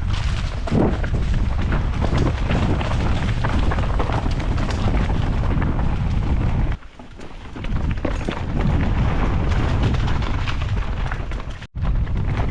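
Wind buffeting a GoPro Hero 10's microphone over the rattle and knocking of a mountain bike riding down a loose, sandy trail. The noise drops for under a second about seven seconds in and cuts out for an instant near the end.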